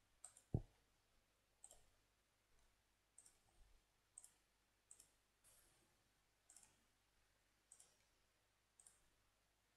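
Faint computer mouse button clicks, about ten spread roughly a second apart, with one duller, deeper knock about half a second in.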